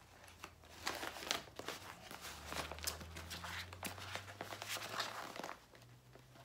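Plastic packaging crinkling as a synthetic ponytail is pushed back into it: a run of irregular rustles and crackles that stops about five and a half seconds in.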